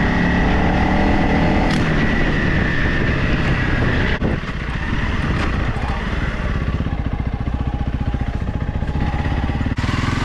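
Motorcycle engine running under way over rough trail. About four seconds in the throttle drops off briefly and the engine settles into a slower, pulsing low-rev chug.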